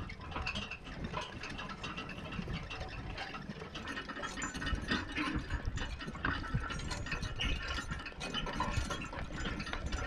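Steel spring-tooth harrow and horse-drawn forecart rattling and clanking, with hitch chains jingling, as a draft-horse team drags the harrow over a field: a steady, dense clatter of small metallic clicks.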